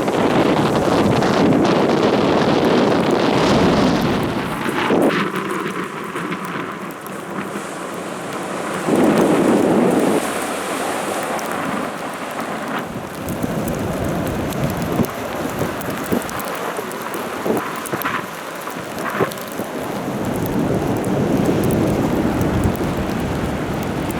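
Strong wind buffeting the microphone in gusts, with heavy rain and a few sharp taps.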